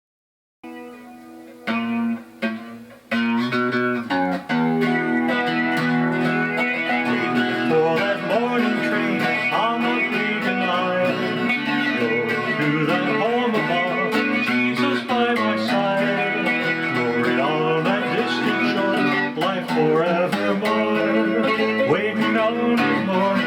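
Instrumental introduction of a country gospel song, led by guitars with sliding notes. It comes in softly about half a second in and fills out at full level from about four seconds.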